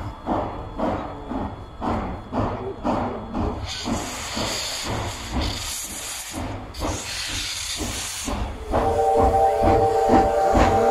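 Steam locomotive approaching with its exhaust chuffing at about two to three beats a second, and a hiss of steam in the middle. From about nine seconds in, the steam whistle sounds a steady chord of several tones, louder than the rest.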